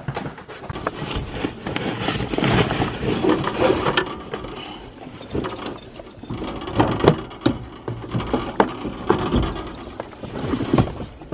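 Clothing and a bag rustling inside a vehicle cab, with scattered sharp clicks and knocks as gear is handled on the seat.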